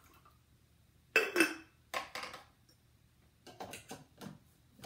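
Clinks and knocks of coffee gear being set down and handled, a Hario V60 dripper going back onto a glass carafe. Two sharp clinks a little over a second in, two more about a second later, then a run of lighter knocks.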